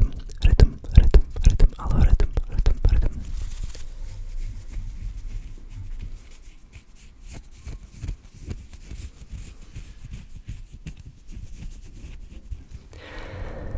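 Close-miked ASMR hand sounds: fingers fluttering, rubbing and scratching right at a microphone, with dense crackly scratches and low thumps in the first three seconds, then a quieter stretch of quick light scratches and taps as fingertips work over the mic grille. One whispered word about three seconds in.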